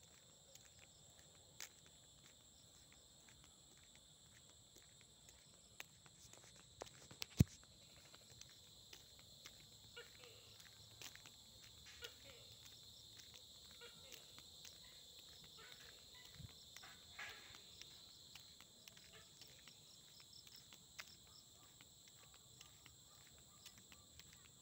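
Faint, steady trilling of insects such as crickets in the fields, with scattered light clicks and taps of walking and phone handling and one sharp click about seven seconds in.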